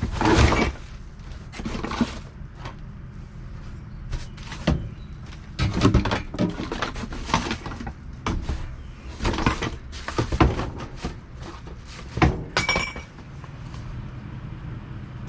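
Discarded household goods knocking and clattering inside a dumpster as they are rummaged through and shifted, in irregular bursts, with one short ringing clink late on.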